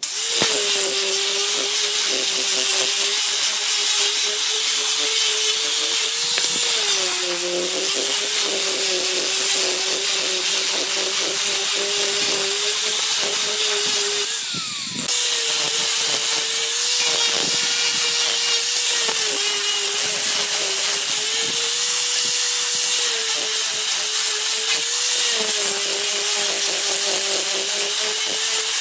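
Electric angle grinder with a sanding pad running steadily while sanding a wooden board, its whine dipping a little in pitch now and then. There is a brief break about halfway before it carries on.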